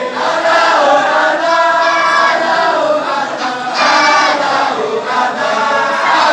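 A group of men chanting a Sufi wadifa (dhikr) together, the voices moving in short repeated phrases without a break.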